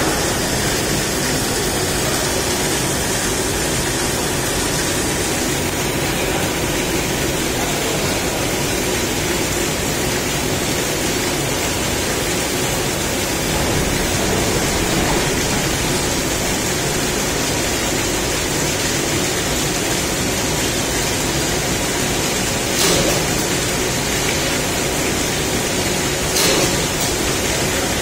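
Gas carburizing pit furnace running with a loud, steady rushing roar and a faint hum, with a couple of short knocks in the last few seconds.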